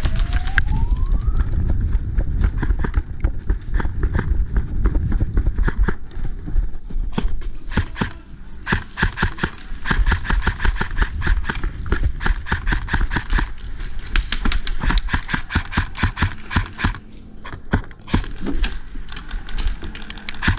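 Airsoft guns firing in rapid strings of sharp clicks from about seven seconds in, with a short lull near the end. Before that, a low rumble of wind and handling on the camera microphone.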